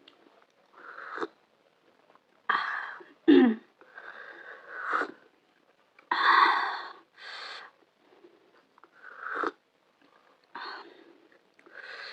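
A person's sharp breathy inhales and sniffs, repeated in short bursts with pauses between them, the loudest about six seconds in: the hissing, sniffling breaths of someone eating food made very hot with green chili.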